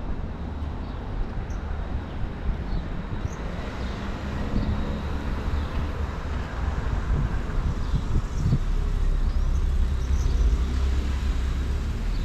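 Steady outdoor beach ambience: a wash of noise over a low rumble, growing a little louder in the second half.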